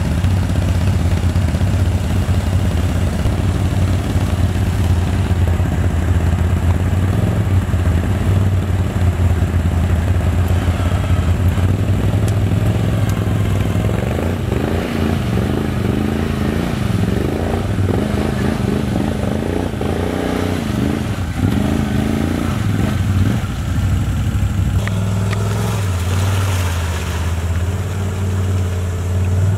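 Can-Am Outlander XMR ATV's V-twin engine running, with the revs rising and falling through the middle stretch and settling to a steadier pitch near the end.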